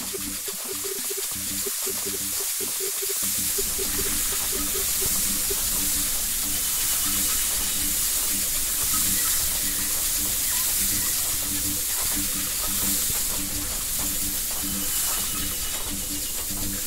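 Steady rushing noise of a waterfall, with short low musical notes repeating in a rhythm underneath.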